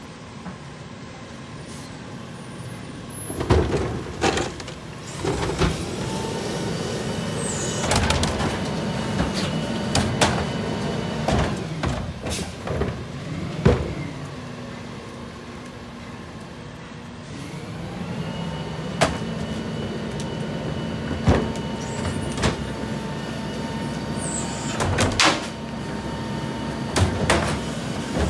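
New Way rear-loader garbage truck on a Freightliner chassis, its diesel engine running steadily as it creeps along, with repeated sharp clanks and hisses and a steady whine that comes in during the second half.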